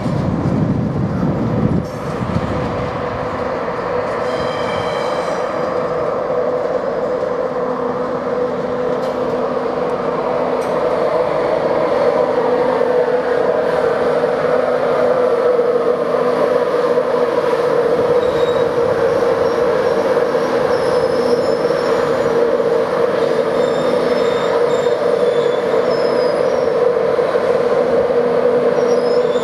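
Class 91 electric locomotive moving slowly alongside with a steady electric hum. A whine falls in pitch through the middle as it slows, and faint high wheel or brake squeals come in the later part.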